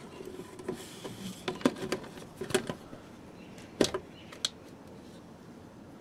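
Long plastic funnel knocking and scraping against parts as it is worked down into a car's engine bay: a run of sharp clicks and knocks, the loudest about four seconds in.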